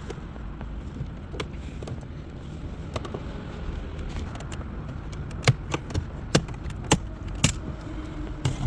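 Sharp plastic clicks and snaps as the silver dash trim beside a Suzuki SX4's radio is pried loose, its retaining clips letting go. A few single clicks at first, then a quicker run of them in the second half, over a steady low hum.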